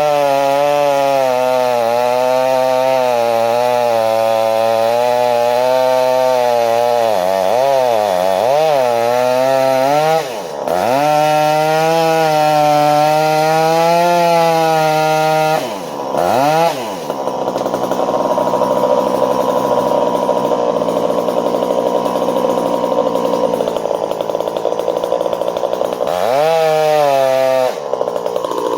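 Two-stroke chainsaw cutting wood, its engine note wavering and dipping as the chain bites, then recovering. The throttle is let off briefly about ten and sixteen seconds in. The note turns rougher from about seventeen seconds, then dips and picks up again near the end.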